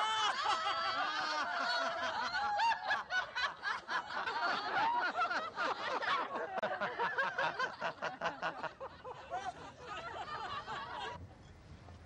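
A crowd of men and women laughing loudly together, many voices overlapping; the laughter cuts off suddenly near the end.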